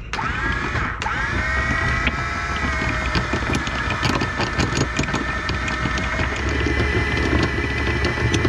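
Electric anchor windlass switched on: its motor whine rises as it takes the load, dips and rises again about a second in, then runs steadily. The anchor chain clicks over the gypsy as it comes aboard, and the boat's engine hums low underneath.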